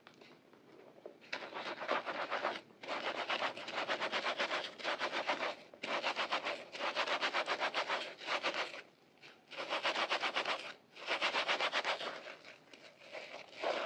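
Soapy kitchen sponge with a green scouring pad rubbed hard and fast between lathered hands in a basin of suds. It makes a rapid scratchy rubbing in about five bursts with short pauses between them.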